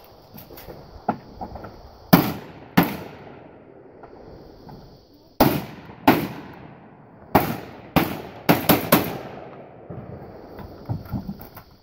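Gunshots fired by a three-gun competitor, about nine in all: two about a second in, two more a few seconds later, another two, then a quick run of three near the end. Each shot rings off briefly.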